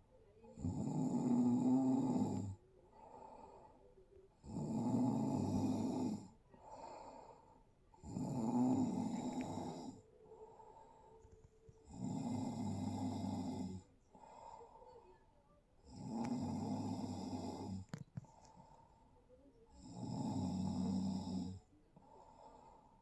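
Snoring in a steady rhythm: six loud snores about every four seconds, each lasting about two seconds, with quieter breathing between.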